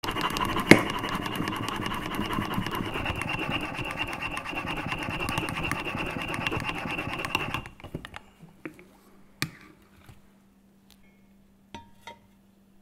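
Bialetti stainless-steel French press plunger pumped rapidly up and down through milk to froth it: a fast, steady rhythmic swishing and rattling of the mesh and rod, with one sharp click about a second in. The pumping stops abruptly about seven and a half seconds in, followed by a few scattered light clicks.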